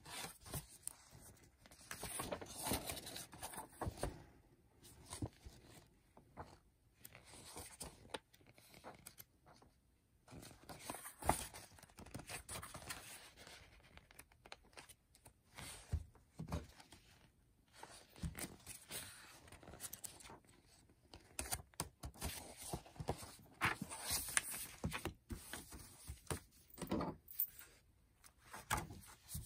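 Paper pages of a coloring and activity book being turned and handled, rustling and crinkling in irregular bursts with short taps and clicks.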